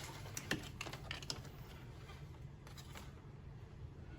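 A few faint, sharp plastic clicks and taps as a digital multimeter and its test probes are handled and set against the battery terminals, mostly in the first second and a half. A faint steady low hum runs beneath.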